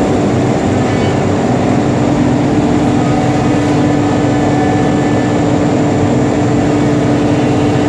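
CNC router running, a steady loud machine noise with a held hum that grows stronger a couple of seconds in.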